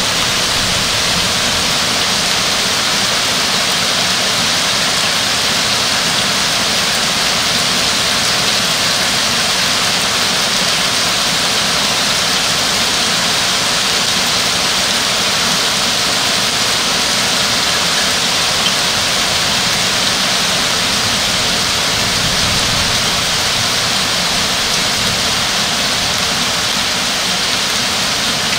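Thunderstorm rain pouring steadily, an even, unbroken hiss.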